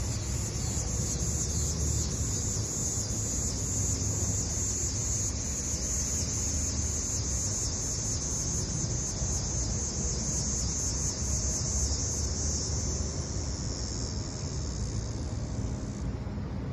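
Summer insect chorus: a loud, fast-pulsing high buzz that stops near the end, over a steady low rumble.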